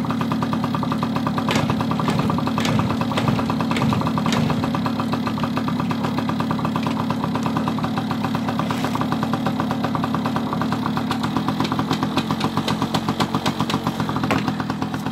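Motorcycle engine idling, with a few sharp clicks in the first few seconds. The idle becomes more uneven and pulsing near the end.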